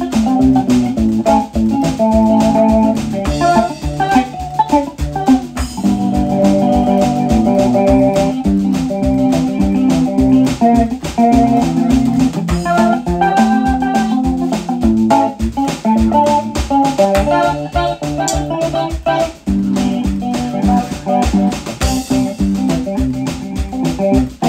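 Background music with a steady beat, organ and guitar.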